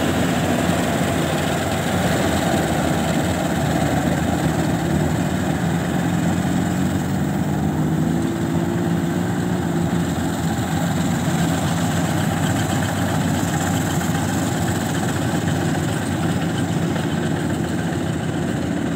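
Rice combine harvester engine running steadily under load while it cuts standing rice, with a slight rise in pitch about eight seconds in.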